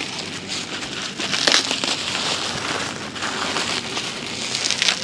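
Plastic bubble wrap being handled, rustling and crinkling, with a few sharper crackles about a second and a half in and again near the end.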